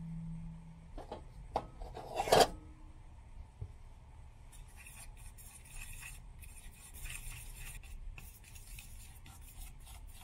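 Fork mixing eggs into flour in a stainless steel saucepan for dumpling dough: a few knocks in the first couple of seconds, then quick repeated scraping strokes of the fork against the pot.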